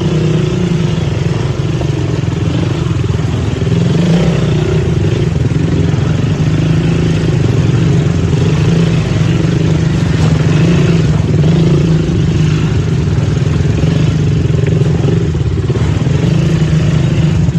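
ATV engine running steadily under way, a continuous low drone with some clatter.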